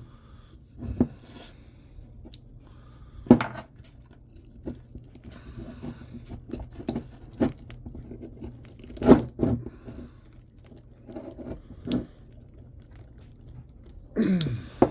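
Screwdriver and wire cutters working on an electric motor's copper windings: scattered metallic clicks, knocks and scrapes as the wire is pried and cut.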